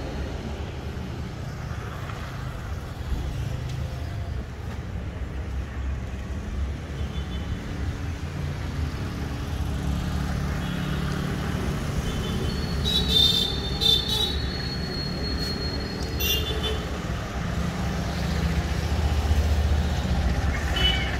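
Road traffic at a junction: vehicle engines running steadily, with short horn honks every few seconds and one horn held for several seconds a little past the middle.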